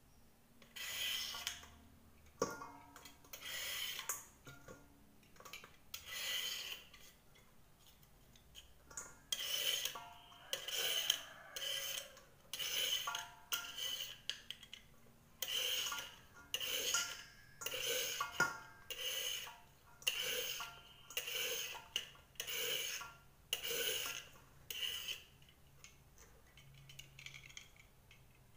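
Red Y-peeler scraping the skin off a sponge gourd (angled luffa) in repeated rasping strokes, about one a second, which stop near the end.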